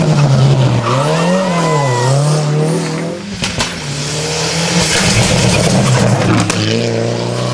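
Rally car engine at competition pace, revs rising and falling repeatedly as the driver shifts and brakes through corners, with a few sharp cracks about three and a half seconds in and the revs climbing again near the end.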